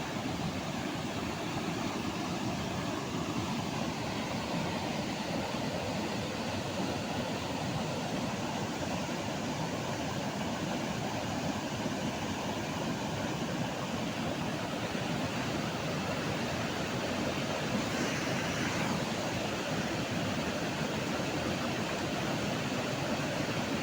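Floodwater rushing down a flooded wadi, a steady unbroken noise of running water.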